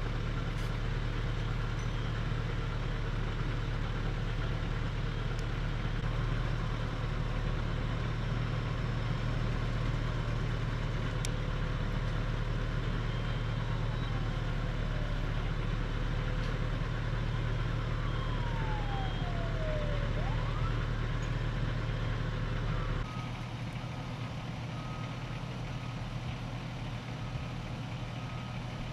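Fire engine's diesel engine idling with a steady low rumble; about 23 seconds in it cuts to a quieter, more distant idle. A faint whine falls and then rises in pitch about two-thirds of the way through.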